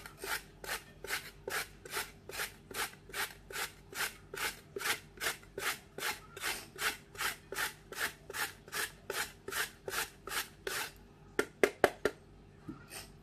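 Carrot being grated on a metal box grater: a steady run of rasping strokes, about two to three a second. The strokes stop near the end and a few sharp knocks follow.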